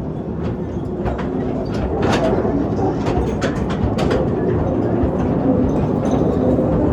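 Amusement-park mine ride train rolling along its track, a steady rumble with scattered clacks and knocks from the wheels on the rails, growing slightly louder.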